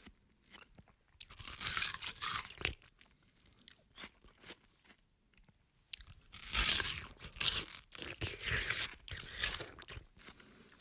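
A person biting into and chewing watermelon: wet, crisp crunching and slurping. There are two bursts of crunching, one about a second in and a longer one from about six seconds, with quieter gaps between.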